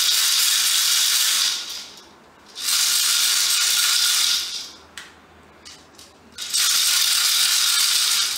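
Plastic airsoft BBs rattling inside the Crosman Stinger R34's plastic magazine as it is shaken by hand, in three long bouts of about two seconds each, with a few light clicks in the pause between the second and third.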